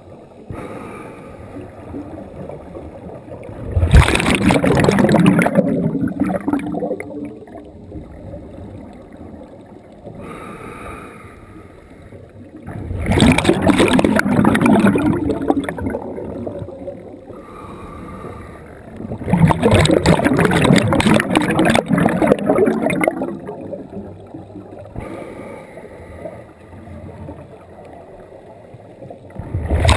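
Scuba regulator breathing heard underwater: about every six to eight seconds an exhale lets out a loud rush of bubbles lasting around three seconds, with quieter inhales between them that carry a faint hissing tone. Three full exhales, with a fourth starting right at the end.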